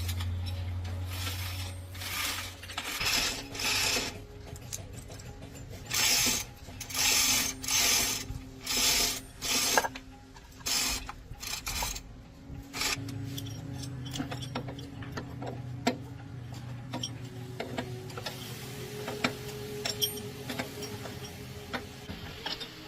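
Hand-tool work on a truck gearbox: a run of about six rasping strokes, then scattered metal clicks and ticks over a low steady hum.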